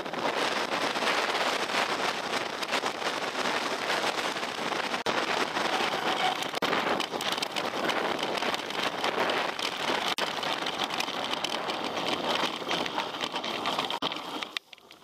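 Mountain bike rolling over a rough trail: a dense, steady crackle of tyres on gravel and rock, with rattling clicks, cutting off abruptly near the end.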